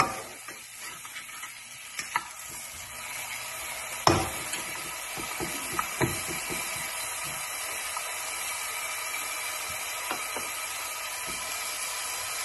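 Diced onion and red pepper sizzling in olive oil in a nonstick saucepan, a steady hiss, while a plastic spoon stirs and scrapes them, knocking against the pan now and then; the sharpest knock is about four seconds in.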